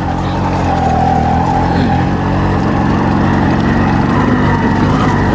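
A vehicle's engine running steadily while driving, its rumble growing denser about halfway through.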